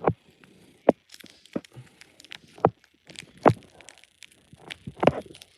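Packaging of a JBL earphone set being handled and unpacked: about six sharp clicks and knocks spread irregularly through, with light rustling between them.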